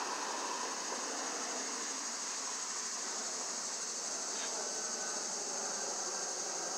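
Airbus A321-211 jet, with CFM56-5B engines, passing low overhead: a steady rushing engine noise with no rise or fall, under a constant high-pitched hiss.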